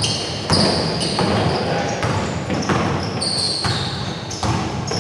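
Basketball game sounds in a large, echoing gym: the ball bouncing on the hardwood floor and players' running feet, with short high sneaker squeaks and some voices on the court.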